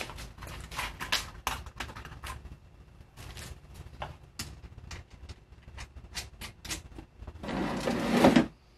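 Irregular light clicks and knocks of a fiberglass Proton Pack shell and its bolted aluminium plate being handled and shifted on a wooden workbench. Near the end comes a louder rushing noise about a second long.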